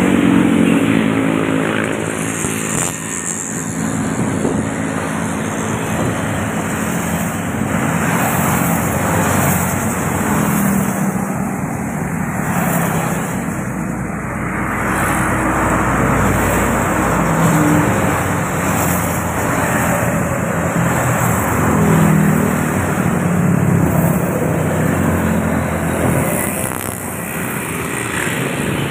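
Busy highway traffic heard from the roadside: diesel coaches and motorcycles passing one after another, their engines and tyre noise swelling and fading with each pass.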